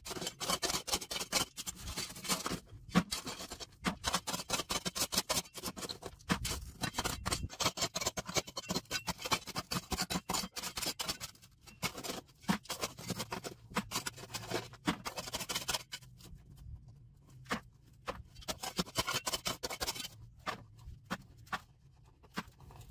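Sand, gravel and small rocks being scraped out of a rock crevice and dropped into a bucket, a fast, irregular run of scrapes and clatters that thins to scattered clicks for a few seconds late on.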